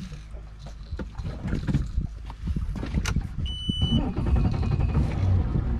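Boat motor running with knocks and clatter on deck. A short electronic beep sounds past the middle, then the motor's drone grows louder as the boat is moved to a new spot.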